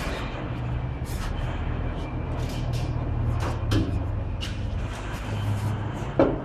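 Old exhaust pipe being worked loose and lowered from under a car: metal scraping and clunking in short bursts, over a steady low hum.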